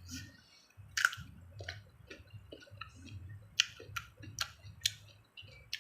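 Close-up chewing of crisp raw produce, unripe mango and cucumber, with sharp crunches: a loud one about a second in, then a quick run of four crunches about three and a half to five seconds in.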